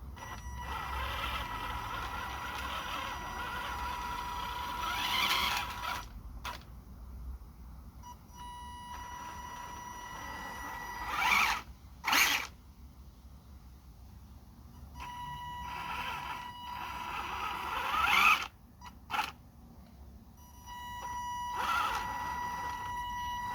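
Electric drive motor and gears of a toy RC car running in four bursts, a steady whine that climbs in pitch near the end of each run before cutting off, with short pauses and a couple of brief sharp bursts in between.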